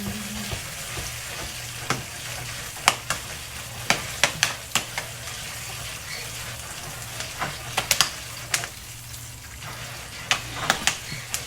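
Popcorn kernels popping in a pan, not a microwave bag: scattered sharp pops at irregular intervals over a steady sizzle, coming more often toward the end.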